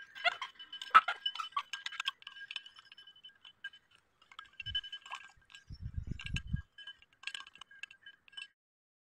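Plastic spoon stirring sugar into a glass tumbler of water, tapping and clinking against the glass so it rings. The strikes come quick and irregular, loudest in the first two seconds, thinning out and stopping near the end.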